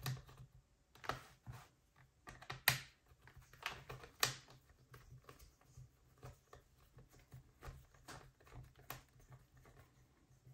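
Light, irregular clicks and taps of a small screwdriver and the hard plastic case of a notebook being handled as the screw on the RAM cover is done up.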